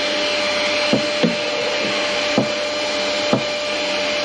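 Wet-and-dry shop vacuum running steadily with a constant whine, sucking dirt off the floor; a few short knocks as debris is drawn up the hose.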